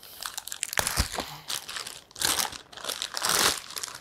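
Clear plastic packaging bag rustling and crinkling as it is handled and pulled open, in irregular bursts that are loudest in the second half, with a couple of sharp clicks about a second in.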